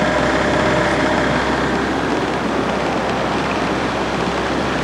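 Motorboat engine running steadily under load, pushing upstream against the flood current, with a steady rush of water and wind.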